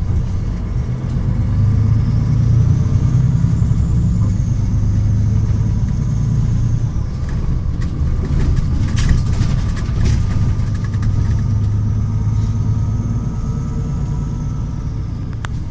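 Solaris Urbino 12 city bus engine running, heard from inside the passenger cabin as a steady low rumble that swells twice. A faint high whine rises and falls with each swell, and there are a few sharp rattles or clicks.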